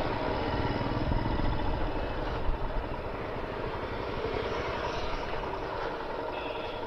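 Royal Enfield Himalayan motorcycle's single-cylinder engine running steadily at low speed in slow traffic, with road and wind noise on the bike-mounted microphone.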